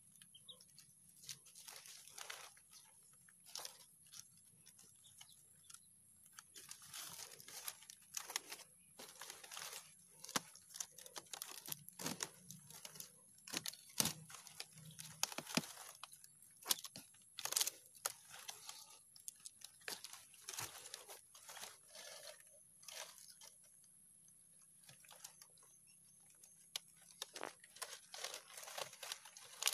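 Fresh green palm fronds rustling, crackling and snapping as hands weave and tuck the leaflets into a basket-shaped nest, in irregular bursts with a brief lull late on.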